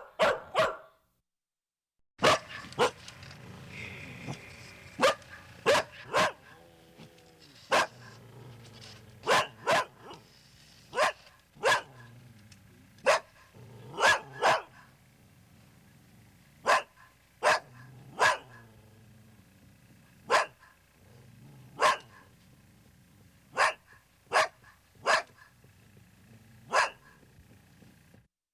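A dog barking loudly in sharp single barks and quick doubles or triples, about twenty barks spread irregularly roughly a second apart. The barking starts after a short silence near the beginning.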